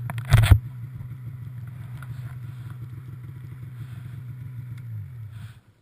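Snowmobile engine idling steadily, with a brief loud noise about half a second in; near the end the engine winds down and cuts off as it is switched off.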